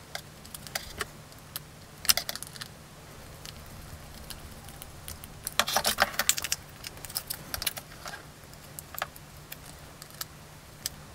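Small clicks and clinks of a metal screwdriver and hard plastic toy parts being handled while screws are driven into the feet of a vintage Star Wars AT-ST toy, in scattered taps with a short clatter about two seconds in and a busier run of clicks around six seconds. A faint steady hum lies underneath.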